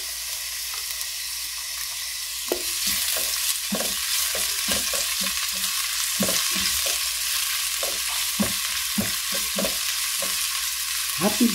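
Chopped onion sizzling in hot olive oil in a nonstick pot: a steady high hiss. About two and a half seconds in, a silicone spatula starts stirring, with irregular scrapes and taps against the pan. The pan was already hot, so the onion fries quickly.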